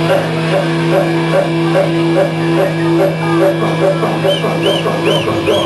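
Punk band playing: distorted guitar holding droning notes over a steady, quick beat.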